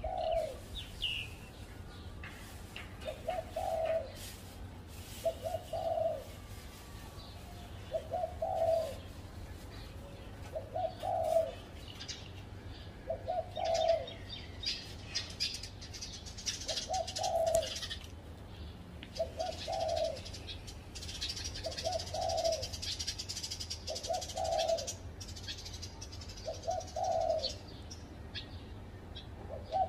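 Spotted dove cooing, a short low note repeated about every two and a half seconds. Small birds chirp high-pitched alongside, mostly in the middle.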